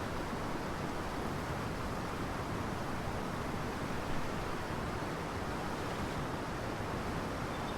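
Steady rushing noise of wind and water, even throughout with no distinct events.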